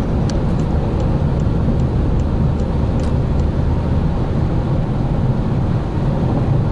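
Steady cabin noise of a Volkswagen Passat GT with the 190 hp 2.0 TDI diesel under way: low rumble of engine and tyres on the road. In the first half, a run of light ticks comes about two and a half times a second.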